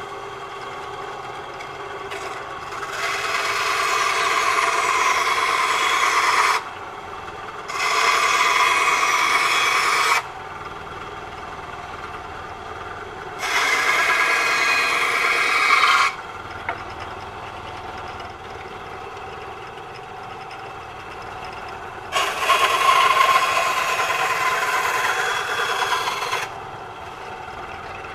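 SKIL BW9501 benchtop band saw running steadily, its blade cutting through small blocks of wood four times. Each cut lasts about two to four seconds and is much louder than the motor's hum between them.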